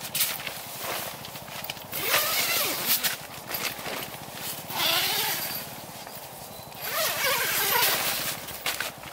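Tent door zipper being pulled in three long strokes, with the nylon fabric rustling and small clicks between the pulls.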